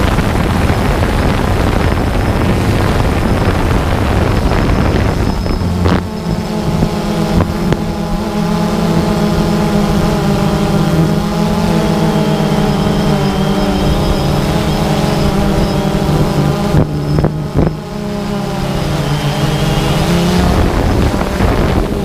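DJI Phantom 2 quadcopter's motors and propellers humming in flight, with wind noise on the microphone. The hum settles into a steady, slightly wavering drone about a quarter of the way in and eases shortly before the end.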